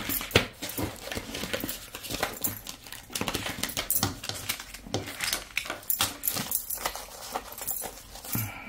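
Paper banknotes being handled and shuffled on a tabletop: irregular rustles and light taps.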